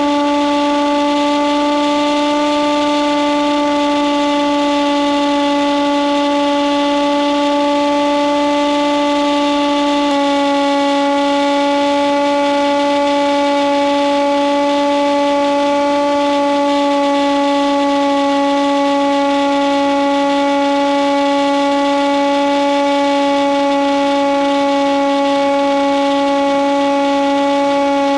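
Steady droning whine of an RC plane's electric motor and propeller, the Nitroplanes Hawk Sky's stock motor, holding one pitch at cruise throttle. The pitch drops slightly about ten seconds in.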